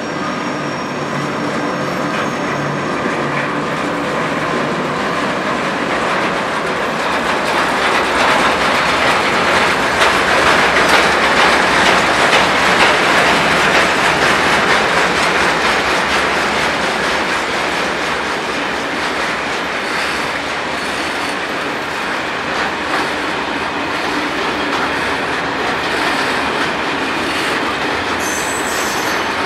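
A long freight train of tank wagons and covered wagons rolling past behind two VR Sr1 electric locomotives: a steady rumble and clatter of wheels on the track, loudest about halfway through, with a brief high wheel squeal near the end.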